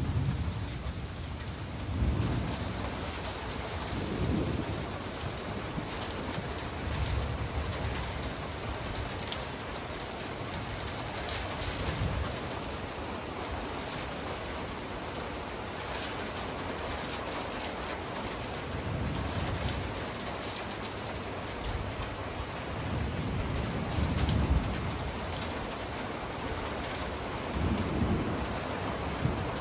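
Steady rain hissing, with repeated low rolls of thunder rumbling through it; the strongest come about two seconds in and twice near the end.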